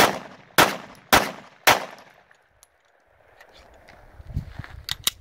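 Four gunshots fired in quick succession, about two a second, each followed by an echo tail, then a few faint clicks and rumble near the end.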